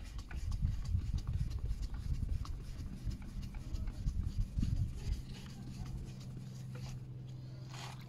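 Plastic headlight lens of a Subaru Impreza being rubbed by hand in quick back-and-forth strokes to restore its hazy, heat-damaged surface. The strokes fade after about five seconds, and a steady low hum takes over.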